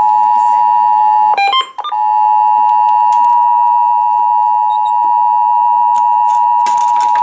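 Emergency Alert System attention signal: two steady tones, 853 and 960 Hz, sounding together loudly, announcing the required monthly test. About a second in it breaks off for half a second under a few short beeps of other pitches, then carries on.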